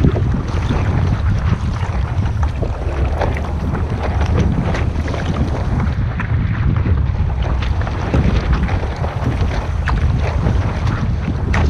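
Wind buffeting the microphone aboard a sailing boat under way: a heavy, steady rumble with crackling water noise over it.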